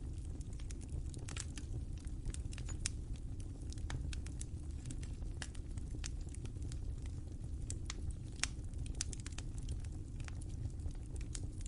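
Fire crackling: irregular sharp pops and snaps over a steady low rumble of the flames.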